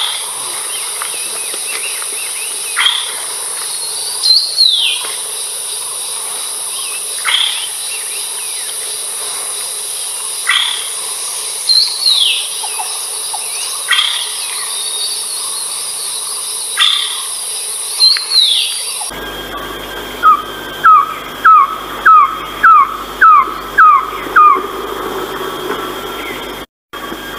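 Philippine trogon calls: scattered short whistled notes and falling calls over a steady high insect hiss. About two-thirds of the way through, the recording cuts to a loud series of about eight short falling notes, roughly two a second.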